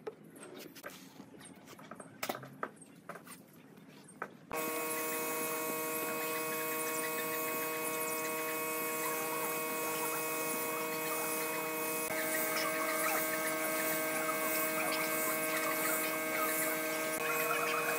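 A few light wooden knocks and clicks as a wooden stand is set on a plywood worktop. About four and a half seconds in, a steady hiss from a gravity-feed spray gun spraying wood finish starts abruptly, with a steady hum beneath it.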